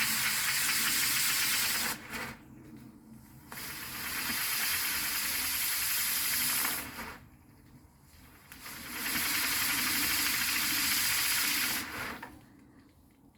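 Firework hissing in three spurts of about three seconds each, the first near the start, the second about four seconds in and the third about nine seconds in, each cutting off suddenly.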